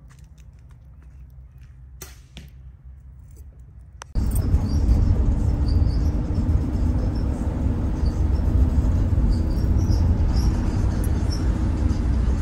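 Steady road and wind noise of a moving car heard from inside the cabin, starting abruptly about four seconds in with a low rumble and a faint hum. Before it, only a faint low background with a couple of soft clicks.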